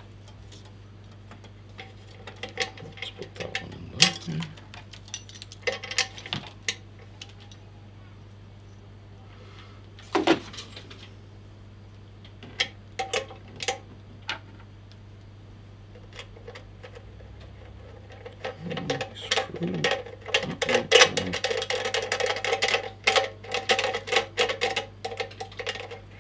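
Small metal parts (screws, washers and fittings) clicking and clinking as they are picked up and fitted to a bench grinder by hand, with scattered single knocks and a busier stretch of rattling and scraping near the end.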